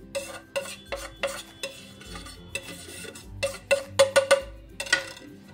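A plate knocked again and again against the rim of a steel bowl to shake out the last of a dry coating mix: sharp clinking taps in small clusters, each with a short ringing note, the densest run of taps about four seconds in.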